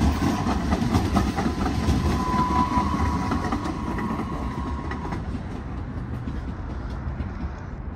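DART light rail train passing, with low rumble and wheels clicking over the rail joints. A steady high wheel squeal stops about five seconds in, and the train fades as it moves off.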